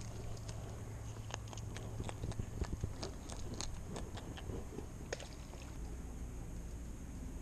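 Irregular small clicks and ticks from a spinning rod and reel being handled, thinning out after about five seconds, over a faint steady high-pitched hum.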